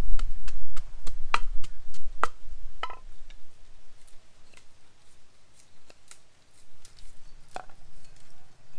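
Knife chopping on a cutting board: sharp knocks about three a second that thin out to a few scattered strikes after about three seconds, as garlic and chilies are cut.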